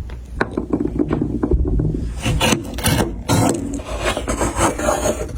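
Wood being cut and scraped by hand, a continuous run of quick, rough rasping strokes.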